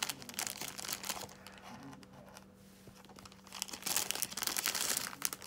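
Thin clear plastic packaging crinkling and crackling as it is handled and pulled open to free a pouch, in two spells with a quieter stretch in the middle.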